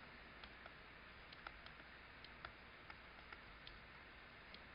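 Near silence: room tone with faint, irregular clicks of a stylus tapping a tablet screen as digits are written.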